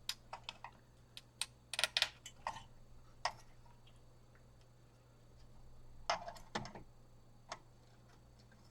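Light scattered clicks and scrapes of a tool working a socketed 6502 chip loose from its socket on the Commodore 1541 drive's board. The chip is stuck and will not come out easily. The clicks bunch in the first few seconds and again about six seconds in, over a faint steady hum.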